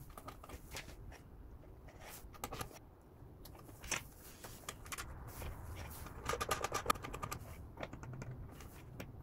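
Small clicks, taps and cable rustling from handling test leads and fitting them to a battery discharger and an 18650 battery holder, with a quick run of clicks a little past halfway.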